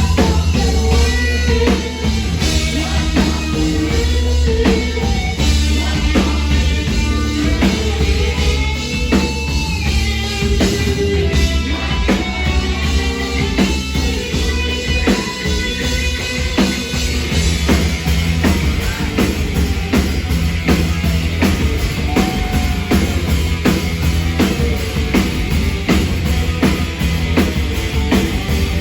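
Live rock band playing, with a drum kit and guitar, loud and continuous.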